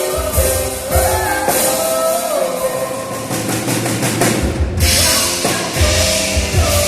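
Live trio music: a drum kit playing under held piano and keyboard notes, one note gliding up about a second in.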